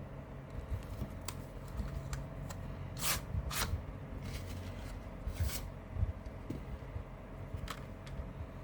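Handling of a CD case and its paper insert: a few light clicks and brief scraping, rustling strokes, the strongest a little past three seconds in and again past five, over a steady low hum.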